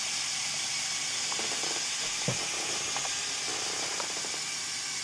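LEGO Power Functions motor driving the winch of a LEGO Technic Mobile Crane MK II (42009) through its gearing, lowering the hook. It makes a steady whirring hiss with a few faint clicks.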